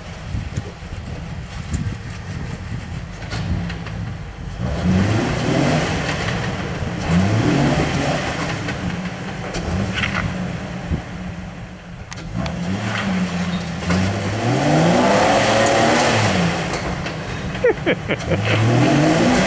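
Off-road vehicle's engine revving up and dropping back in repeated surges, about six of them, with scattered knocks in the first few seconds.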